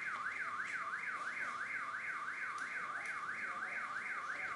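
Electronic alarm siren wailing, its pitch sweeping quickly up and down about three times a second at an even pace.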